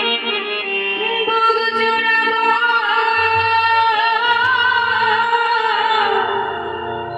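Live Baul folk song amplified through a PA: a young woman singing long, gliding held notes over keyboard accompaniment.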